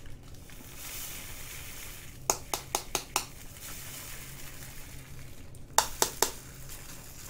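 Diamond painting resin drills being poured and handled: a soft hissing patter about a second in, then two quick runs of sharp little clicks, one just after two seconds and another near the end.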